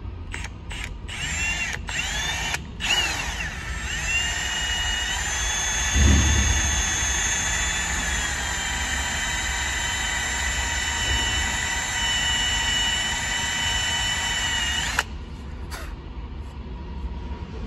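Milwaukee M18 cordless drill drilling a grease-nipple hole into a Suzuki RM250 rear suspension linkage: a few short spin-ups rising in pitch, then a steady high whine for about eleven seconds that cuts off suddenly. A low thump comes about six seconds in.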